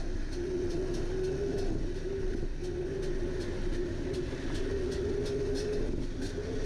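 Enduro motorcycle engine running at a steady, slightly wavering pitch while riding along a trail, with wind rumble on the microphone and faint repeated ticks.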